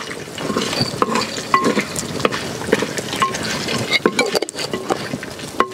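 Wooden spoon stirring and scraping inside a clay cooking pot with many small knocks and clinks, over hot oil sizzling as cashews are dropped in to fry.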